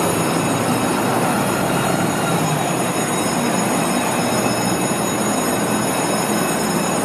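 Steady, dense city traffic noise: a fire truck's diesel engine idling at the station door while vehicles pass close by, including a van going past in front.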